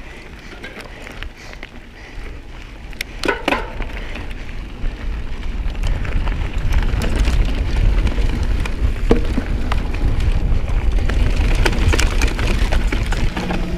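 Pivot SwitchBlade 29 mountain bike rolling on a dirt trail: tyres crunching over dirt and gravel with many scattered clicks and rattles over a low rumble. It gets louder about five or six seconds in as the bike picks up speed.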